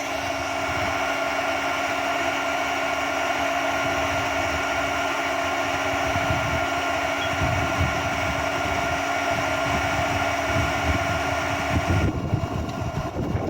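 Handheld induction heater running steadily, a fan hum with a fixed whine, as it heats a rusted exhaust header bolt to break it free. The steady tone cuts off about twelve seconds in, followed by some irregular handling noise.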